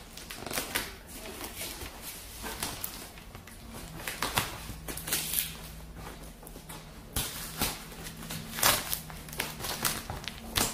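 Scissors cutting through packing tape on a cardboard box, then the tape and cardboard flaps being torn and pulled open: irregular snips, scrapes and crackling.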